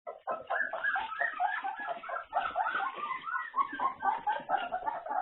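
A litter of two-week-old Labradoodle puppies whimpering and squeaking, many short high cries overlapping without pause.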